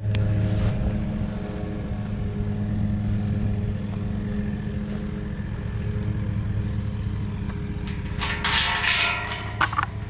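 A steady low drone throughout, with metal clanking and rattling from about eight seconds in as a chained tube-steel farm gate is unhooked and swung open.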